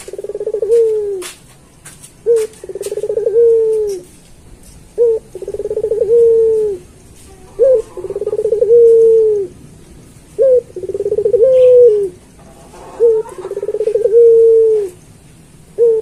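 Puter pelung, an Indonesian breed of domestic ringneck (barbary) dove kept for its long call, cooing over and over: about six calls, each a short note, a rolling trill and a long drawn-out note that drops at the end.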